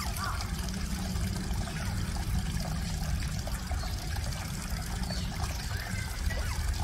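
Steady trickling, running water, with a few faint short chirps now and then.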